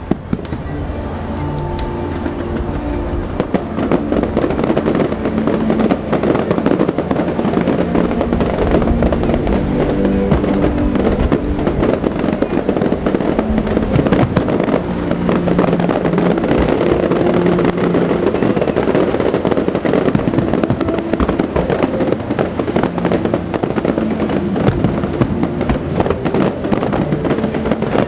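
Fireworks display with aerial shells bursting and crackling continuously, the barrage growing louder over the first few seconds, while show music plays under it.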